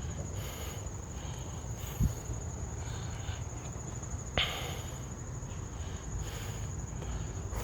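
Insects trilling steadily on one high note, over a low rumble. There is a single knock about two seconds in and a short rustle near four and a half seconds.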